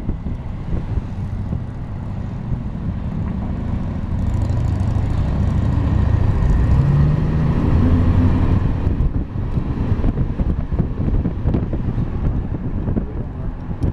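A motor vehicle passing, its low engine rumble swelling about four seconds in and easing off near nine seconds, over wind gusting on the microphone.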